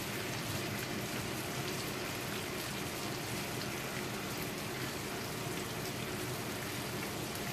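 Green bell pepper pieces simmering in liquid in an uncovered frying pan: a steady bubbling sizzle as the pan juices boil off.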